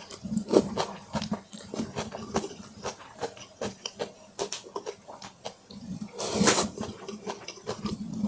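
Close-miked chewing of braised pork in brown sauce: many irregular wet smacks and clicks of the mouth, with one longer, louder hissing burst about six and a half seconds in.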